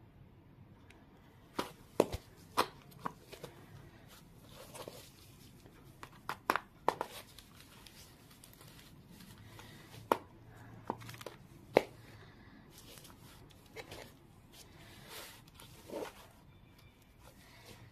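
Folded paper boxes being handled: scattered sharp taps and clicks with short bursts of paper rustling.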